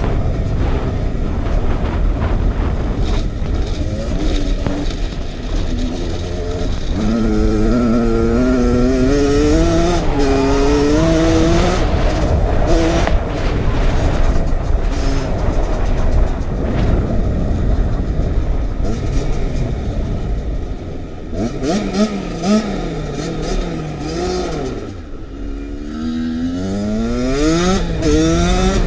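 2015 Kawasaki KX85 two-stroke dirt bike engine revving hard as it is ridden through the gears, under heavy wind rumble on the handlebar camera's microphone. The engine note climbs in repeated rising sweeps, falls away a few seconds before the end, then climbs steeply again.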